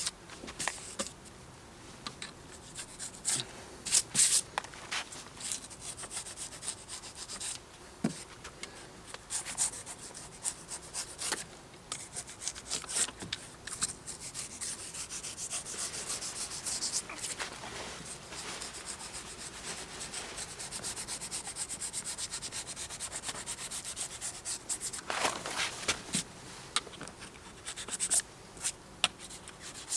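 Knife blade scraping and shaving cured expanding foam flush with a boat hull: irregular rasping strokes, with a denser run of scraping about 25 seconds in.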